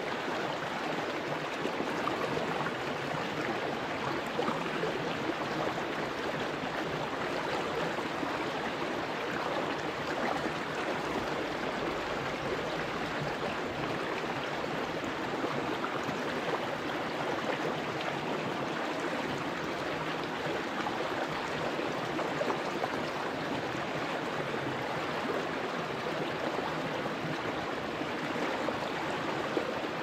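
Shallow rocky stream flowing steadily over stones, an even babble of running water.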